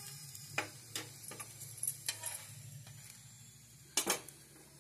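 Steel spoon clicking and scraping against a tawa as a paratha is pressed on it: a scatter of sharp clicks, then a louder double click about four seconds in. A faint sizzle of the paratha frying and a low steady hum sit underneath.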